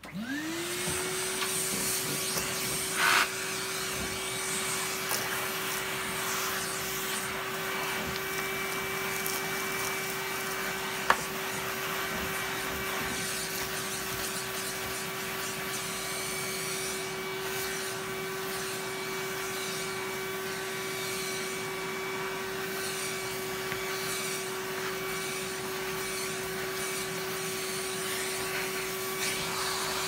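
Vacuum cleaner switched on, its motor spinning up within a second to a steady whine as the hose sucks up dust. There is a brief louder burst about three seconds in and a single sharp click around eleven seconds.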